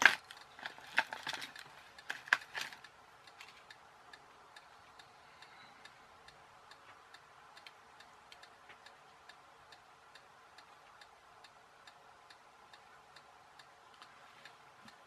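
A few sharp clicks in the first couple of seconds as small resistors are handled and their wire leads bent by hand, then a faint, steady ticking at an even fast rate.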